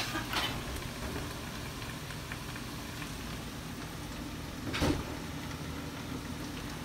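Steady low hum of room noise, with a sharp click at the start, another just after, and a louder knock about five seconds in.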